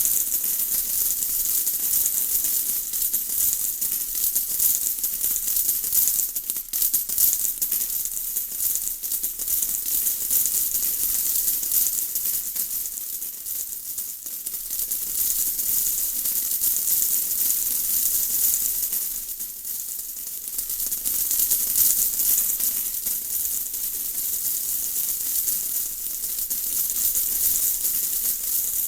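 Steady rain falling: a dense, crackling patter of countless drops with a hiss high in pitch, swelling and easing slightly now and then.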